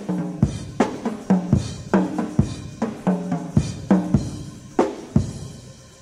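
Unaccompanied live drum kit solo from a 1970s cassette recording: tom strokes that ring with pitch, snare cracks and bass drum, about two to three hits a second. The last hit comes about five seconds in and rings away.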